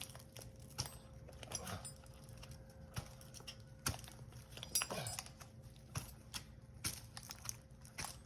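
Irregular knocks and clinks, roughly one or two a second, with rustling between them: climbing spurs biting into bark and climbing gear clinking against the tree as the climber moves.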